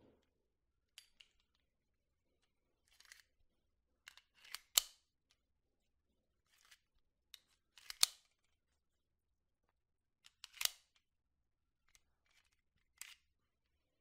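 Springfield Armory 1911 Lightweight Operator pistol being handled: a string of separate sharp metal clicks and clacks from its action, some ten in all, the loudest about five, eight and ten and a half seconds in.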